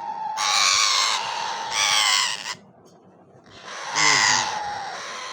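Baby Indian ringneck parakeet begging while being hand-fed: three harsh, wavering squawks, the last one short, the calls of a hungry chick.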